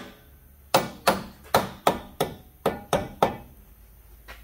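Hammer blows knocking a wooden 4x4 block out from between a front lower control arm and the frame: about eight sharp whacks in quick succession, roughly three a second, starting under a second in, until the block comes free.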